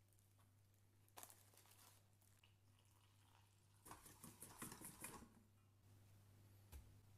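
Faint scraping and clinking of a wire whisk stirring glaze in a stainless steel bowl, for about two seconds in the middle, over a low steady hum.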